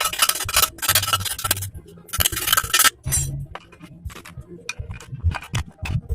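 Metal engine parts and tools being handled, clinking and scraping: three longer rattling scrapes in the first three seconds, then a run of short sharp clicks.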